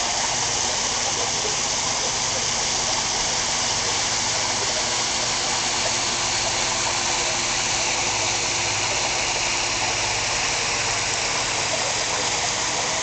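Backyard pool waterfall splashing down brick steps into the pool: a steady, unbroken rush of water, with a low steady hum underneath.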